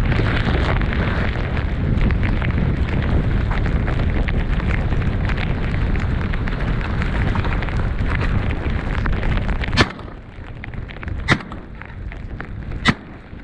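Strong wind buffeting the microphone, then three shotgun shots about a second and a half apart in the last few seconds.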